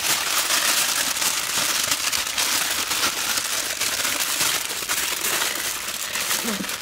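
Aluminium foil crinkling and crackling without a break as hands fold and press it around a whole cow's leg.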